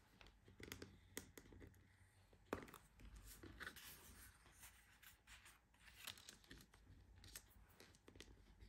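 Faint scraping and small clicks of a bone folder scoring cardstock along the grooves of a plastic scoring board, with the card being lifted and folded, and one sharper click about two and a half seconds in.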